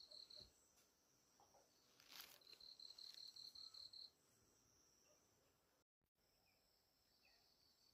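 Faint, high, rapidly pulsed insect trill in two bouts, the second about a second and a half long, with a short soft rustle about two seconds in. After a brief gap near the end, a few faint bird chirps.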